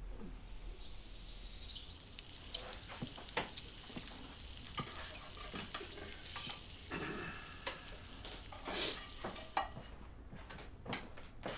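Food sizzling in a frying pan, with a spatula scraping and clicking against the pan again and again.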